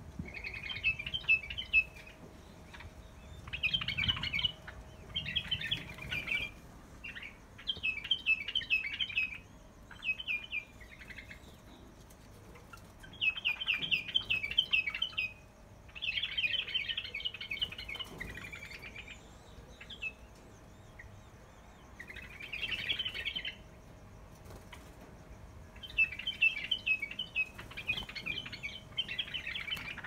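Small cage birds chirping in repeated bursts of quick, high chirps, each burst lasting a second or two with short pauses between.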